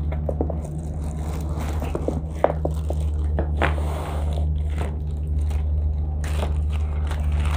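Cardboard packaging being handled, flaps scraping and rustling in short bursts, then a plastic bag crinkling near the end. A steady low hum runs underneath.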